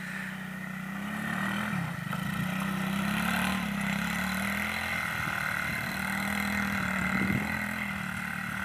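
Small quad bike's engine running at steady high revs while it drifts circles on snow, with a brief dip in pitch about two seconds in.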